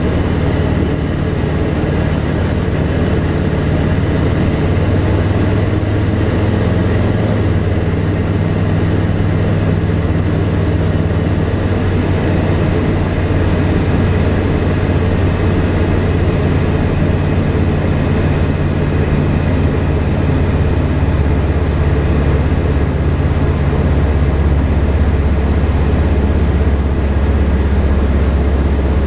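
Tecnam P92 Echo Super's Rotax 912 flat-four engine and propeller droning steadily in flight, heard from inside the cockpit, with small shifts in pitch.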